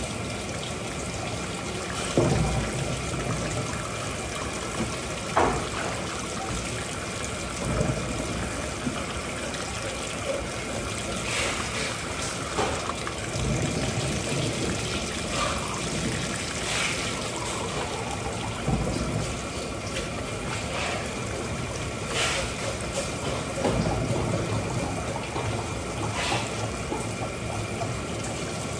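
Water running steadily, with scattered short knocks and clatters throughout.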